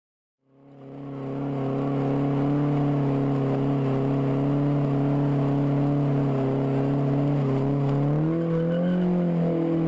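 Car engine held at steady high revs during a burnout, wheels spinning, fading in about half a second in; the pitch climbs a step near the end.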